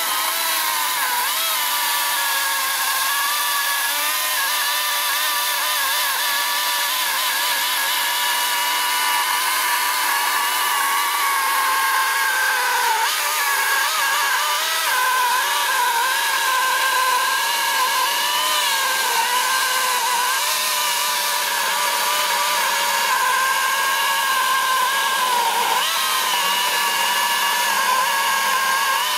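Einhell GP-LC 36/35 cordless electric chainsaw, run on two 18 V batteries, cutting steadily through a thick log: an unbroken motor whine with the chain rasping through the wood. Its pitch wavers a little as the cut loads the motor.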